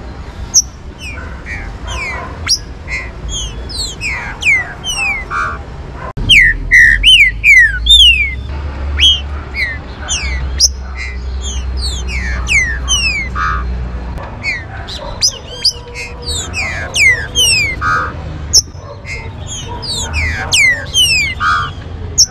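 Green-winged saltators (trinca-ferro) singing and calling: a dense run of sharp, quick, falling whistled notes, many overlapping one another. A low rumble runs underneath from about six to fourteen seconds in.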